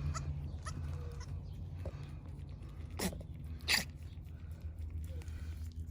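Nigerian Dwarf goats, a doe with her newborn kid, making a few short goat sounds, the clearest about three seconds in and again just before four seconds, over a steady low hum.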